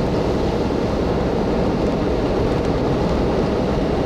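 Steady wind and road noise inside a moving car with its windows open, with the engine running under it.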